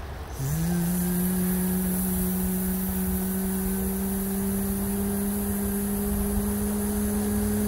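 A motor starts about half a second in and runs on with a steady hum. Its pitch rises quickly at first and then creeps slowly higher, with a hiss alongside.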